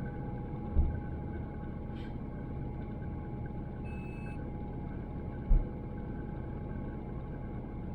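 Inside the cabin of a Great Wall Hover H3 on the move: steady engine and road rumble with a thin, constant whistle, which the owner puts down to a worn drive-belt pulley. Two low thumps, about a second in and again about five and a half seconds in, and a short electronic beep near the middle.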